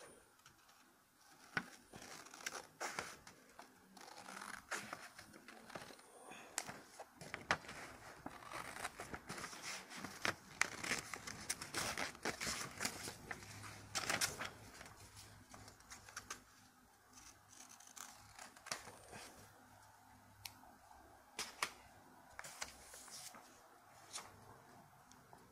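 Scissors cutting through a sheet of paper, snip after snip with paper rustling, dense for the first half or so, then thinning to scattered snips and paper handling in the later part.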